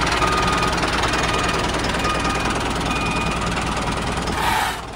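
Steady tractor-engine running sound with a constant low hum, ending in a short rush of noise and a drop in level near the end.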